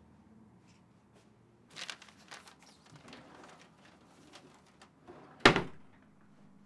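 Rustling and small clicks of things being handled at a wooden office desk, then one loud bang about five and a half seconds in, dying away quickly.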